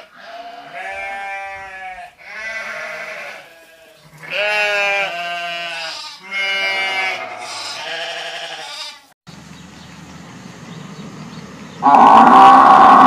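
Sheep or goats bleating: several separate wavering calls, one after another. Near the end a louder steady sound of another kind begins.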